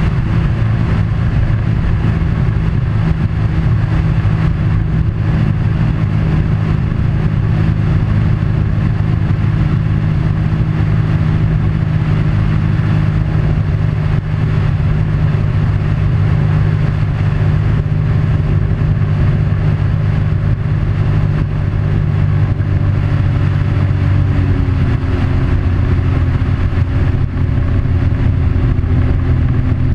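A vehicle engine running steadily while riding, with road or travel noise underneath and a slight change in engine pitch about 24 seconds in.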